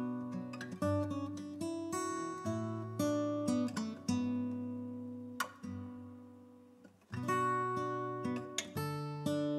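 Background music of acoustic guitar, strummed chords and plucked notes ringing out. It thins to a few fading notes around the middle and picks up with full chords again about seven seconds in.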